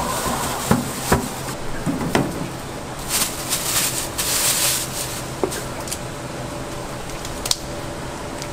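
A plastic bag rustling as it is handled and shaken open, with a few sharp knocks of wooden skewers and utensils about one and two seconds in and a single click near the end, over a steady low hum.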